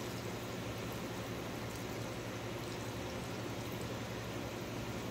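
Water streaming from a pump sprayer's wand, tip removed, onto potting soil in a fabric pot, running steadily over a low hum.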